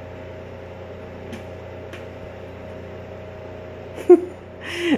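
Steady hum of a running appliance, with a few fixed tones. About four seconds in, a short loud vocal sound breaks in, followed by a brief breathy hiss.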